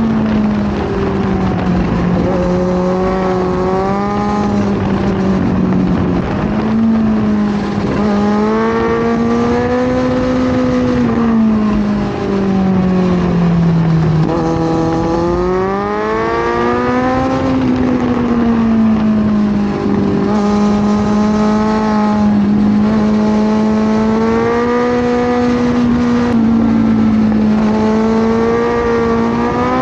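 Kawasaki Z900 inline-four motorcycle engine under way, its note rising and falling as the rider accelerates, shifts and rolls off, with several sharp drops in pitch at gear changes.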